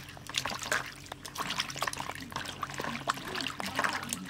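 Hands swishing and squeezing chopped Malabar spinach (pui shak) leaves and stems in a plastic basin of water, giving a run of small, irregular splashes and trickles.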